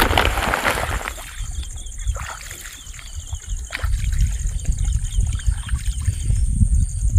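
Footsteps wading through shallow marsh water, sloshing and splashing, with a loud swish in the first second and a low rumble that grows stronger in the second half. A steady high-pitched drone runs underneath.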